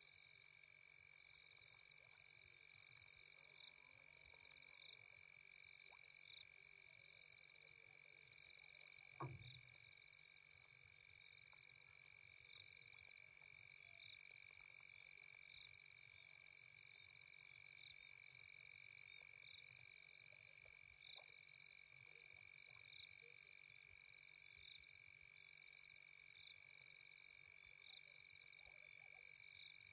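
Faint nighttime insect chorus: a steady high-pitched pulsing trill with a constant high whine beneath it. A single faint click about nine seconds in.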